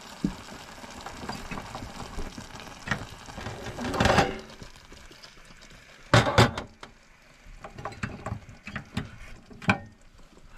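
A steel cooking pot being moved on a gas hob: a low steady hiss for the first few seconds, a scrape and clatter about four seconds in, then loud metal clanks about six seconds in as the pot is set down on the pan support, followed by lighter clicks and knocks.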